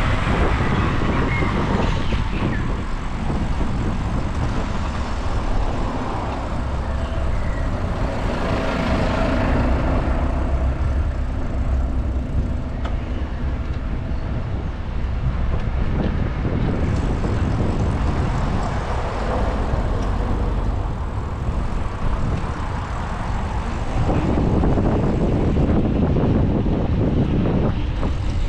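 City street traffic: cars and trucks driving past in a steady wash of road noise, swelling as vehicles go by.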